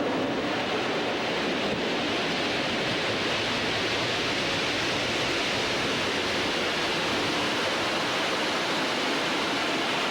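A steady, even hiss with no pitch or rhythm, unchanging throughout.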